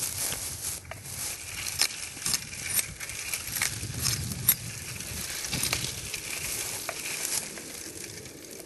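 Ka-Bar knife blade chopping and scraping side twigs off a freshly cut sapling, amid the crackle of dry undergrowth. It is an irregular run of sharp clicks and snaps over rustling, with the sharpest cracks about two seconds in and midway.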